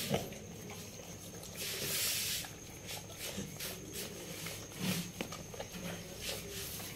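Faint wet licking and snuffling from a pit bull mother licking a newborn puppy clean, with a breathy rush of air about two seconds in.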